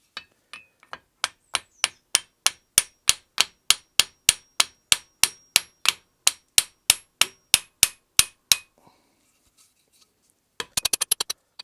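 Hammer striking a steel part of a stump grinder shaft in a steady run of blows, about three a second, with a metallic ring. The blows stop about eight and a half seconds in. Near the end comes a short, fast burst of clicks.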